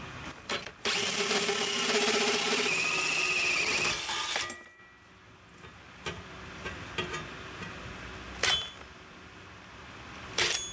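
Cordless drill boring out a pilot hole in a metal plate, running under load for about three and a half seconds from about a second in, with a rising whine partway through, then stopping. Two sharp clicks follow near the end.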